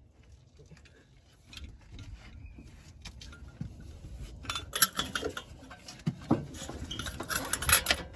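Irregular metal clinks and clanks of tools knocking against the truck's rusty exhaust pipe. The sounds get busier and louder about halfway through.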